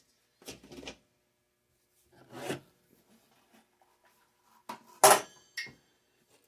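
A few short knocks and rattles of objects being handled and set down on a wooden workbench, the loudest a sharp clack about five seconds in.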